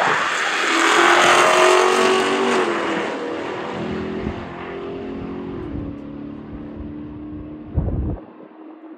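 Cars at full-throttle race acceleration, most likely a supercharged V8 Dodge Hellcat and a supercharged V8 Cadillac CTS-V. The engine note climbs and then drops as the cars pull away and fade. A short, heavy low thump comes near the end.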